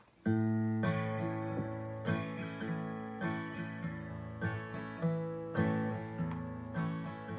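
Solo acoustic guitar playing a song intro: strummed chords in a steady rhythm, starting suddenly about a quarter of a second in.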